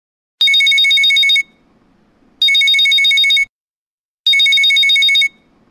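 Mobile phone ringing with an old-style telephone-bell ringtone: three rings of about a second each, two seconds apart, each a fast high trill.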